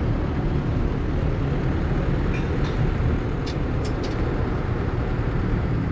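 A steady low mechanical rumble, with a few faint clicks a little past halfway.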